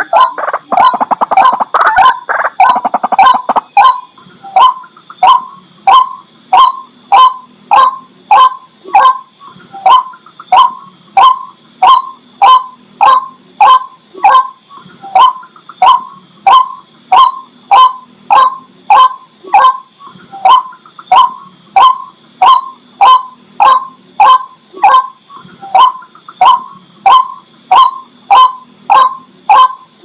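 White-breasted waterhen calling: a few seconds of rapid, jumbled croaking calls, then a steady, monotonous run of loud croaking notes repeated about twice a second.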